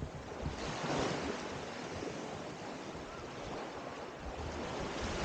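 Small waves washing onto a sandy shore in a steady hiss, with wind rumbling on the microphone.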